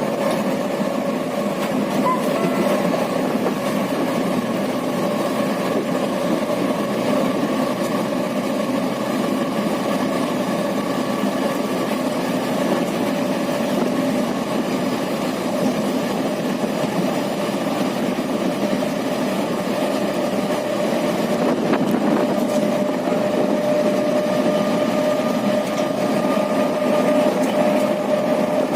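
An engine running steadily with a constant hum and no change in pitch.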